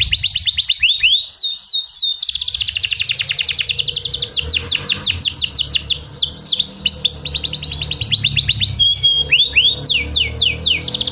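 Domestic canary singing a long, fast trilled song: rapid runs of falling notes, several a tenth of a second apart, broken by a few slower swooping notes and short pauses, over a steady low hum.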